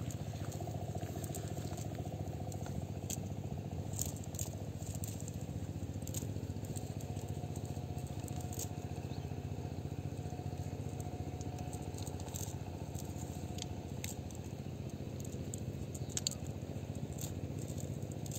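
A small engine running steadily in the background. Scattered light clicks and rustles come from a nylon cast net being handled on the grass.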